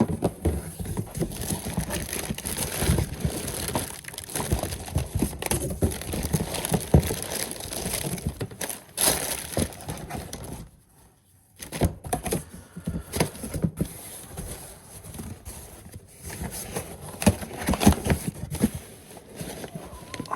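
Boxes and plastic items being handled and shifted around: an irregular run of knocks, clatter and rustling, pausing for about a second midway.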